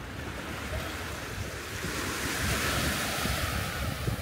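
Sea waves washing up on a beach, one surge swelling to a hiss in the middle and then easing off, with wind buffeting the microphone.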